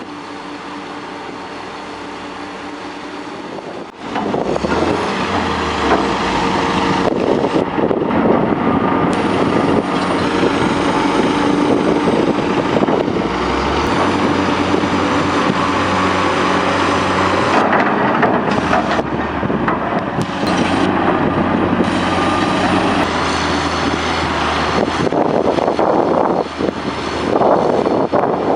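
Heavy diesel machinery engine running steadily. About four seconds in, it gives way abruptly to a louder, rougher machine sound that carries on.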